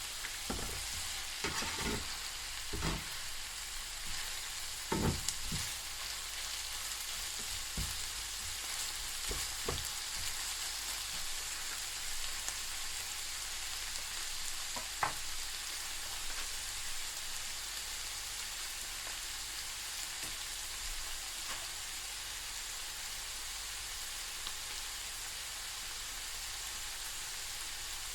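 Beef frying in a pan, a steady sizzle, with several sharp knocks of a utensil stirring against the pan in the first ten seconds and one more about halfway.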